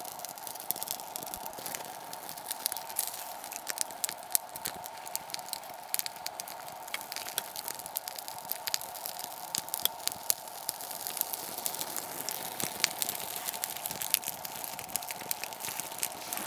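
Birch bark burning, crackling with many small sharp pops that come irregularly throughout. Under it runs a steady hum from the camera's optical image stabilizer.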